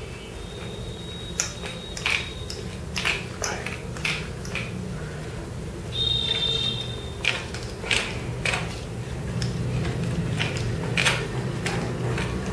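Metal parts of a viscometer stand being assembled by hand: irregular clicks and knocks as the steel rod is fitted and screwed into the base and the clamp on the rod is handled, with two brief high squeaks, one near the start and one about six seconds in.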